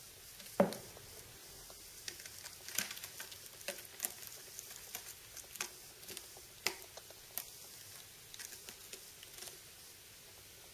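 A Ragdoll kitten playing on a sisal-rope cat tree: paws and claws scratch, scuffle and tap on the rope post and the carpeted platforms. There is one thump about half a second in, then scattered sharp clicks and scrapes.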